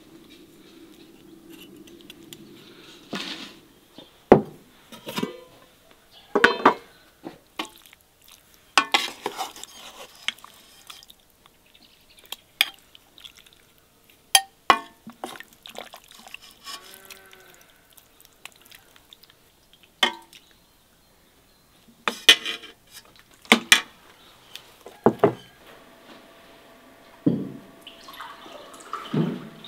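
Kitchenware clattering: a string of separate knocks and clinks of utensils against pots and dishes, a few of them leaving a short ringing tone.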